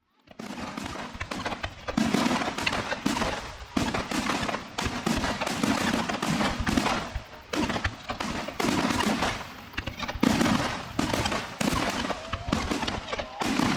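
Aerial fireworks shells bursting in rapid succession, a steady stream of bangs and crackles with a heavy boom every second or two.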